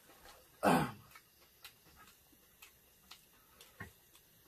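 A person clearing their throat once, a short burst falling in pitch about two-thirds of a second in, then faint scattered clicks and rustles of paper egg-roll wrappers being handled.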